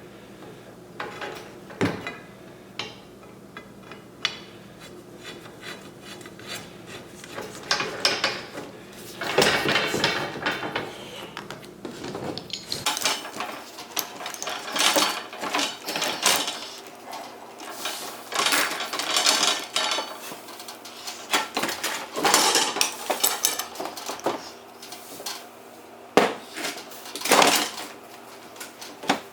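Steel pipe and metal fittings clanking, rattling and scraping as a pipe leg is fitted and tightened onto a steel target stand: scattered knocks at first, then a busier run of clatter from about a third of the way in.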